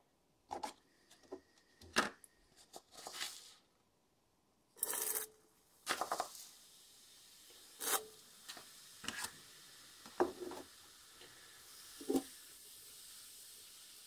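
Irregular scrapes, clicks and taps of handling at a glass beaker, with a short hiss about five seconds in. A faint, steady fizzing builds toward the end as urea added to the hot aqua regia solution reacts and the solution starts to foam.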